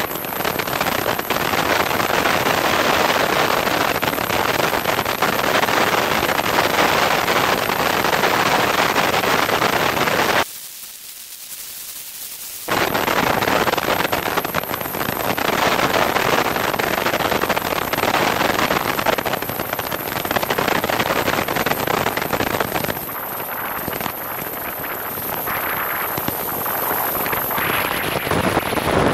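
Loud, steady rush of airflow buffeting a camera mounted under the wing of a Piper Cherokee on landing approach. It drops out briefly about ten seconds in and eases somewhat over the last few seconds as the plane touches down and rolls on the runway.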